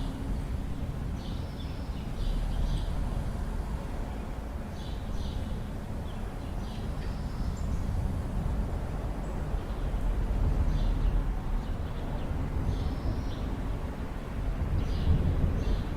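Deep rumble of thunder and wind, swelling a little now and then, with short bird chirps scattered over it.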